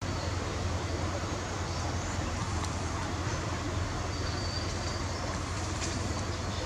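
Steady low rumbling background noise with hiss, with a faint thin whistle about four seconds in.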